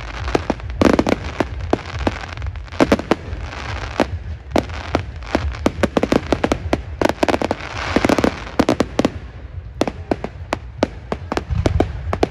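Fireworks display: aerial shells bursting in a rapid, irregular run of sharp bangs, with crackling and hissing between the reports.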